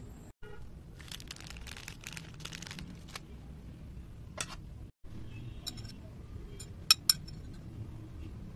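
Utensils clinking and tapping against a glass dessert tumbler as a trifle is layered, with a stretch of light rustling handling noise early on. Two sharp clinks close together about seven seconds in are the loudest.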